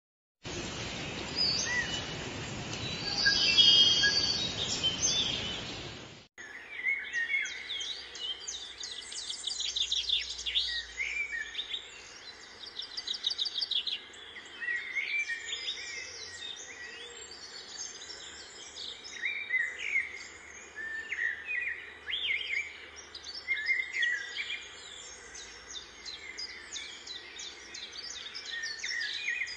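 A loud, dense hiss-like sound that cuts off suddenly about six seconds in, then small birds chirping, many short calls in quick runs and scattered singles.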